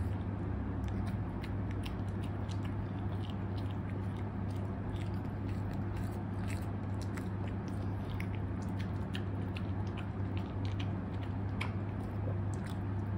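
A Shih Tzu eating from a ceramic bowl: quick, irregular chewing, crunching and licking clicks. A steady low hum runs underneath.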